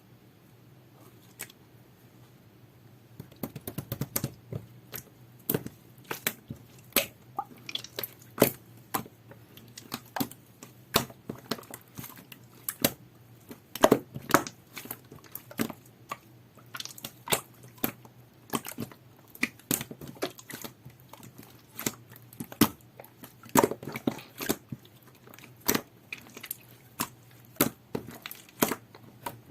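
Jelly-textured two-layer slime being squished and pressed by hand, making sharp sticky clicks and pops, several a second, that begin about three seconds in.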